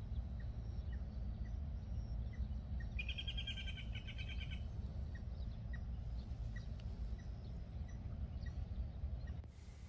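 A bird calling a rapid run of about ten short, even notes lasting under two seconds, over a steady low rumble, with faint short chirps scattered around it.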